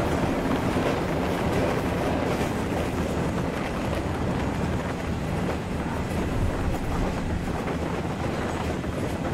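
Passenger train running along the track, heard from inside the carriage: a steady rumble of wheels on rails with faint scattered clicks.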